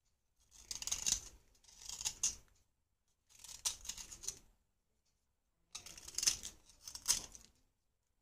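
Knife blade scraping a red clay bar, shaving it into powder: five rasping strokes, each about a second long, with short pauses between.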